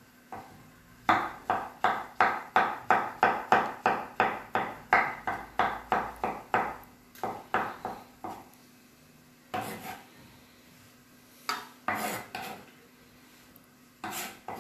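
Chef's knife chopping cauliflower on a wooden cutting board: a quick run of knocks, about four a second, for some seven seconds. After that come a few scattered knocks as the chopped pieces are gathered and swept off the board with the blade.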